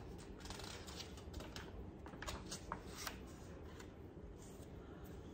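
Paper pages of a picture book being turned: a short run of crackly rustles and crinkles for about two and a half seconds, then only faint room noise.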